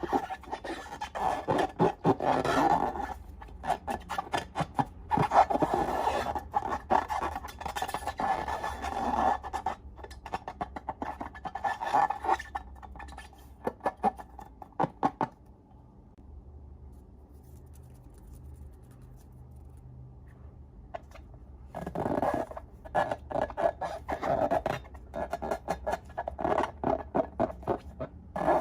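Close-up crackling, scraping and squishing of slime being handled and mixed, dense rapid clicks, going quiet for several seconds past the middle, then starting up again.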